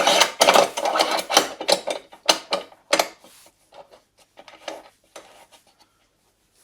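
A bench drill's fence being handled and fitted to the drill table: scraping and rattling for about two seconds, then a few sharp clicks and knocks that fade out near the end.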